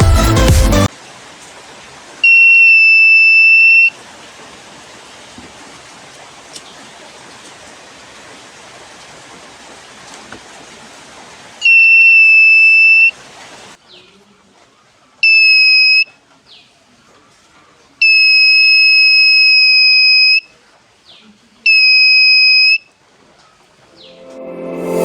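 A homemade fire alarm circuit's electronic buzzer sounds a steady high-pitched tone five times, set off by its fire sensor. The beeps are of uneven length, from under a second to over two seconds, with short gaps and one long gap between them.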